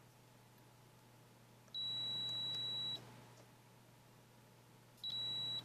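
Multimeter continuity beeper sounding twice as test probes touch the pads of a backlight filter on an iPhone 6 Plus logic board: a steady high beep of about a second, then a shorter one near the end. Each beep signals a closed circuit between the probes.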